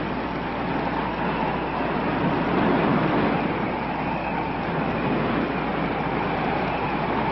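Steady rushing wind of a desert sandstorm, an even noise that holds constant throughout.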